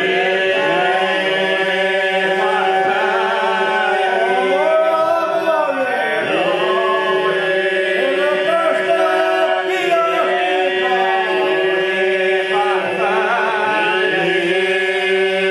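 Unaccompanied men's folk group singing an Albanian polyphonic song, a steady held drone under wavering, ornamented upper voices.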